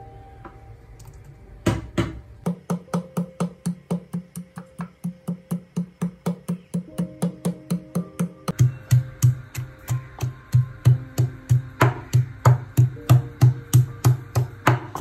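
Wooden pestle pounding in a wooden mortar, crushing garlic, green chillies and spices into a chutney, at a steady rhythm of about three strikes a second from about two seconds in. Each strike is a hollow wooden knock, and the thud turns deeper and louder about halfway through, when chopped onion is being pounded.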